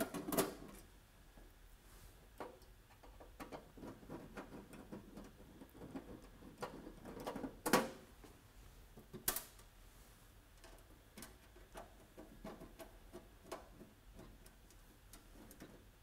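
Screwdriver unfastening the cover screws of a wall-mounted electrode steam humidifier's sheet-metal housing: scattered faint clicks and ticks, with a few sharper clicks, the loudest about halfway through.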